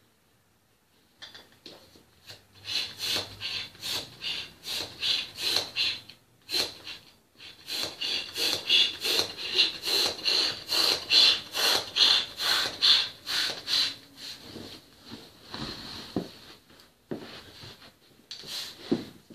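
Handheld plastic balloon pump worked in quick strokes, about two a second, each a hissing rush of air as it inflates a long modelling balloon. The strokes stop briefly about a third of the way in, then grow weaker and sparser near the end.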